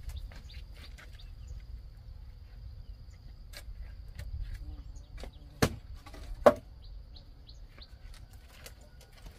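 Two sharp knocks of wood on wood, a little under a second apart, from firewood being handled, over scattered bird chirps and a faint steady high whine.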